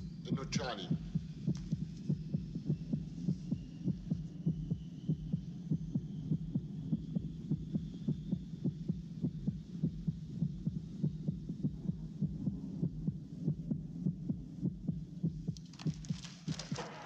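Film sound effect of a human heartbeat: steady paired thumps over a low, steady hum, standing for a drug smuggler's mounting fear at an airport security check. The heartbeat stops about a second before the end.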